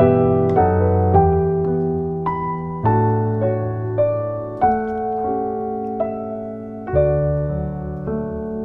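Background piano music, slow and gentle: single notes and chords struck about once or twice a second, each ringing on and fading.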